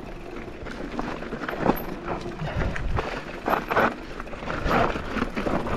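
Enduro mountain bike riding down a rough, rocky trail: tyres rolling and crunching over stones, with a steady run of irregular knocks and rattles from the chain, suspension and frame.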